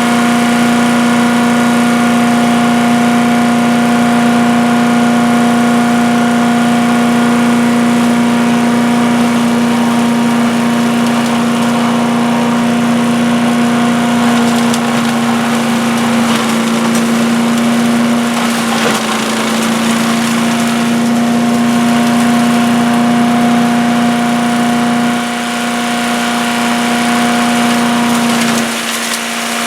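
Earthquake 212 cc wood chipper-shredder's single-cylinder four-stroke engine running steadily at speed, with a rougher, grinding stretch partway through and two brief dips in level near the end.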